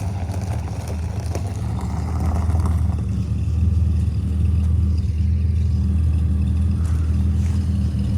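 Car engine running at low revs with a steady low drone.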